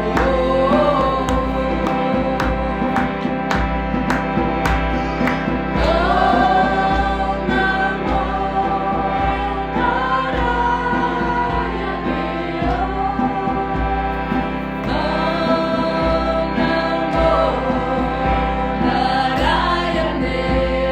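Background music: choir-like singing with long held notes over sustained chords.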